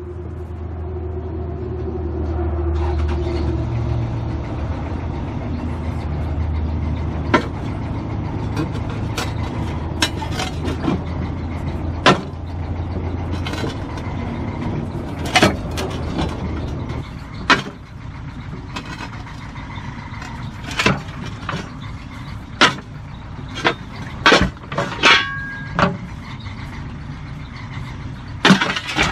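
Bobcat B300 backhoe's diesel engine running hard under load, easing off about two-thirds of the way through, while the backhoe bucket strikes an AR500 steel gong plate again and again. The strikes are sharp metal clanks, coming closer together near the end, some leaving a short ringing tone.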